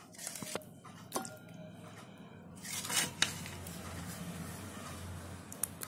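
A spoon clinking and scraping against a stainless steel pot as thick chicken curry is stirred and lifted, with a few short sharp clicks and a louder scrape about three seconds in.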